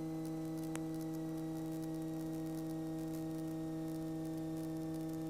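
Steady electrical hum, several flat tones at once, in a light aircraft's cockpit audio feed, with a faint click under a second in.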